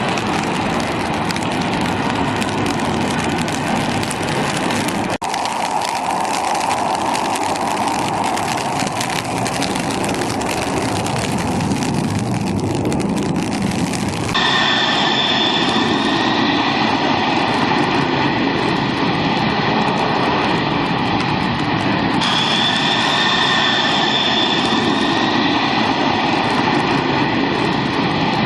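Jet airliner engines running loud and steady. About halfway through the sound changes abruptly to a steady whine with high tones over the noise.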